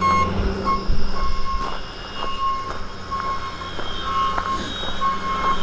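Bobcat skid steer's diesel engine running while it reverses, its backup alarm beeping steadily a little faster than once a second.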